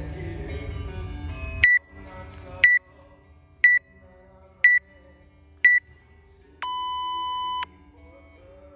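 Workout countdown timer beeping: five short high beeps a second apart, then one long lower beep that marks the start of the hang. Music plays underneath and drops sharply in level at the first beep.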